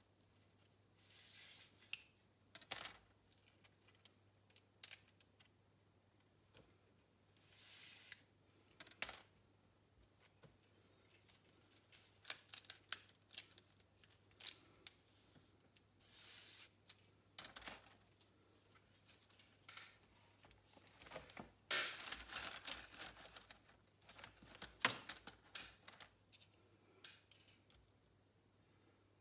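Light clicks and taps of thin wooden spoke dowels being picked up, sorted and laid down on a cutting mat, with short rustles of hands sliding over them; the busiest clatter comes about two-thirds of the way through. Near the end a digital caliper is slid along and clicked against the dowels.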